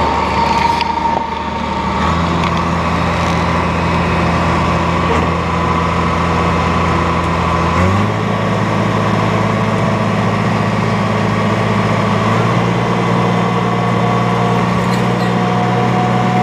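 Caterpillar crawler dozer's diesel engine running steadily while skidding logs, with a fainter high whine over it; the engine note steps up in pitch about eight seconds in.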